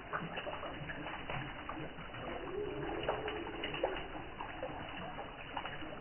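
Water from a small man-made waterfall splashing and trickling down a stone wall, with a dove cooing once about two seconds in.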